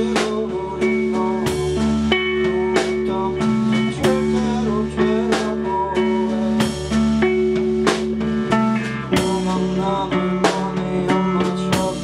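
Live band playing a song: electric guitar over a drum kit beat, with steady low sustained notes underneath.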